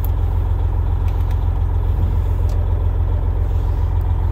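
A Freightliner Coronado's diesel engine idling steadily, heard from inside the cab as an even, pulsing low hum, with a few faint clicks over it.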